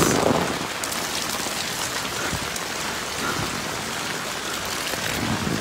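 Steady moderate rain falling on a wet paved street and pattering on an umbrella held overhead.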